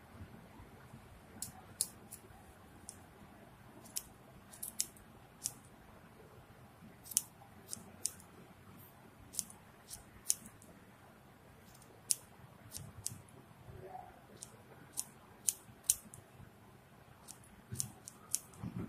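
Scissors snipping as they trim the loose ends of a yarn pompom to shape. Short, sharp snips come at an irregular pace, roughly two a second, beginning about a second and a half in.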